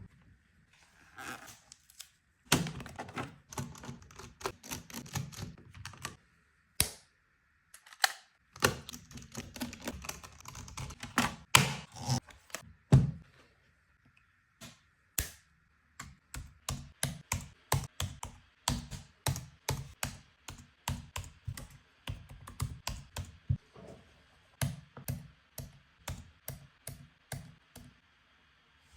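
Hands working on an HP laptop for an SSD swap: many small clicks, taps and knocks of plastic and metal parts. They come in irregular clusters at first, then as a more even run of clicks in the second half.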